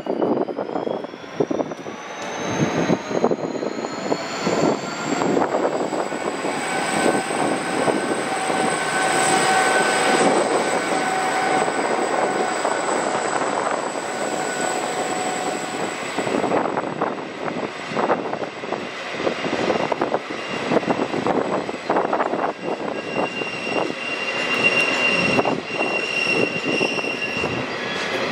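Freight train hauled by a G-class diesel-electric locomotive, G515, running with a high whine that climbs over the first six seconds and then holds steady, over a constant mechanical din with many irregular knocks and clanks.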